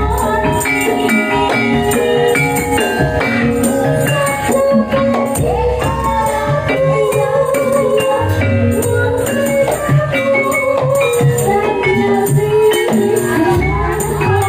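Upbeat live music with a steady drum beat and shaken tambourine jingles under a wavering melody line, the kind of band that accompanies a gajah-gajahan dance.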